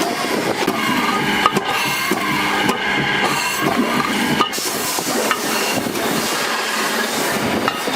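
Steady workshop din of tools and handling, with a few sharp knocks.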